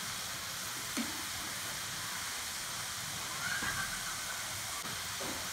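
Potato sticks deep-frying in hot oil, a steady sizzle and hiss: the second, medium-heat fry that makes French fries crisp.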